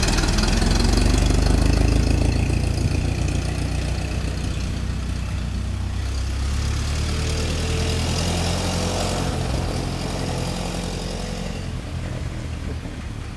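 Ford Model T's 2.9-litre four-cylinder engine running steadily, slowly getting quieter over the last several seconds.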